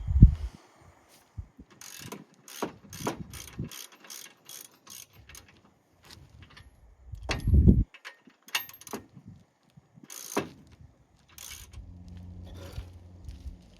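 Ratchet on a hitch-mounted e-bike rack being worked, a run of evenly spaced clicks at about three a second, then a heavier thump and a few more clicks as the rack is tried out. A low steady hum sets in near the end.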